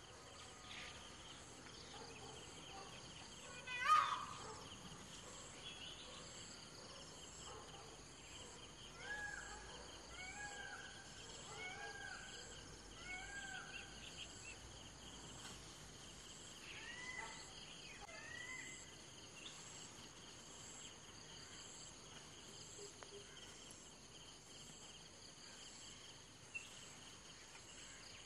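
Steady high chirring of crickets and other insects, with wild birds calling over it. There is one loud call about four seconds in, a run of four or five short rise-and-fall calls about a second apart around the middle, and a few more a few seconds later.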